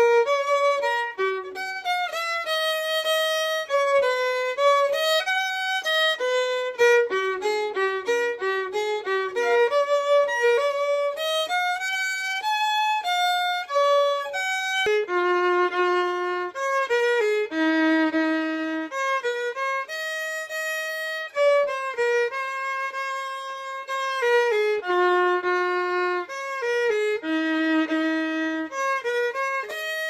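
Solo fiddle playing an old-time fiddle tune: a quick run of changing notes, then from about halfway slower, longer held notes.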